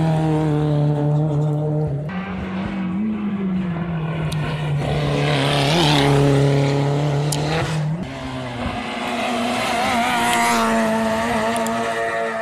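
Rally cars racing past one after another at full throttle, their engines revving high. The engine note jumps in steps as they change gear, and a few sharp cracks cut through.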